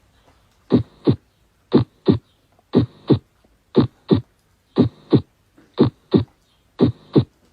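Recorded heart sounds: a steady lub-dub, each beat two short thuds close together, about one beat a second, with a faint hum between the beats.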